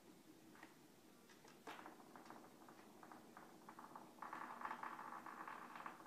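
Faint scratching and light clicks as a cat paws at its fabric mat, turning into a steadier, denser scratching about four seconds in.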